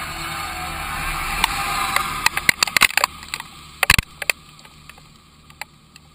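Tractor engine running, then fading away from about two seconds in, with a cluster of sharp clicks and taps in the middle.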